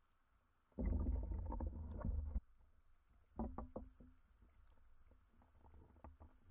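Muffled water sloshing and bubbling at the surface, heard through an underwater camera. It is loudest for about a second and a half near the start, followed by a few clicks and smaller splashes about halfway through.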